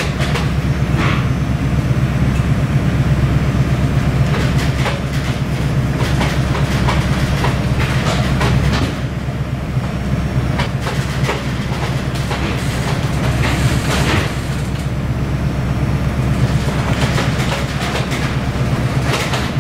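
Steady low drone of a ship's engines, heard aboard an offshore rescue vessel in heavy seas, with frequent irregular knocks and rattles over it.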